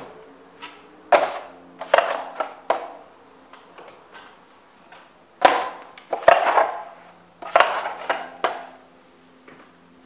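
Steel drywall knife scraping and clacking as it loads and spreads joint compound on a ceiling patch: about nine sharp metal scrapes and clacks in irregular bunches, each with a short ring.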